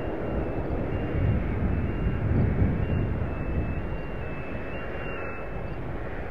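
Steady low rumble of a train, with a faint string of short high beeps running over it.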